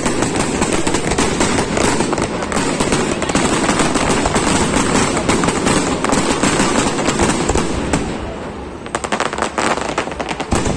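Aerial fireworks display: a loud, dense barrage of bangs and crackling that thins out about eight seconds in to separate sharp bangs.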